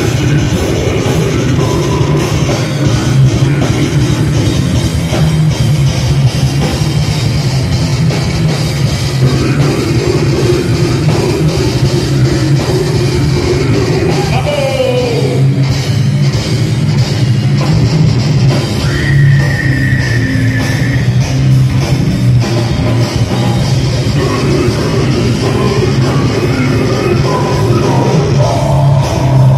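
Heavy metal band playing live and loud: electric guitars, bass guitar, drum kit and vocals in one dense, unbroken wall of sound.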